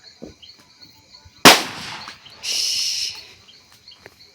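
A firecracker bomb goes off with one sharp, loud bang about a second and a half in, followed about a second later by a short hiss. Crickets chirp steadily in the background.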